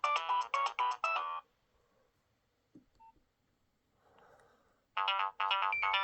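Nokia 6030 ringtone playing a quick electronic melody that cuts off about a second and a half in. After a short quiet gap with a few faint clicks, the next ringtone starts near the end.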